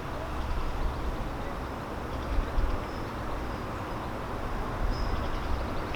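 Outdoor background noise: a fluctuating low rumble under a steady hiss, with faint high chirps around the middle and near the end.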